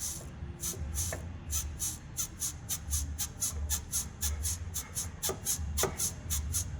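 Front control-arm bushing of a 2010 VW Gol G5 creaking as the arm is rocked up and down by hand: a rapid, even run of squeaks, several a second. The small front bushing has come loose and is turning inside the arm's housing instead of flexing.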